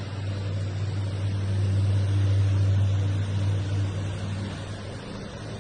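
A low mechanical drone, a steady hum that grows louder about two seconds in and eases off again near the end.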